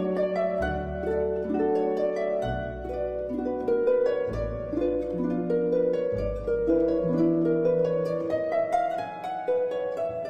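Background music: plucked string notes over held low notes, a slow melody that changes note every second or so.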